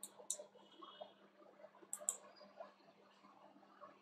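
Faint computer-mouse button clicks: two quick clicks at the start and two more about two seconds in, over a faint steady electrical hum.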